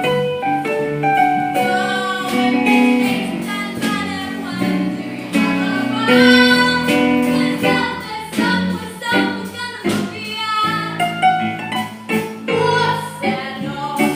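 A song sung with instrumental accompaniment, the voices holding and moving between sustained notes.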